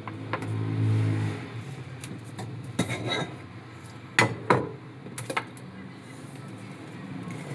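Kitchen work sounds: a low hum that swells and fades in the first second and a half, then a handful of sharp clinks and knocks of cookware, the loudest two close together about four seconds in.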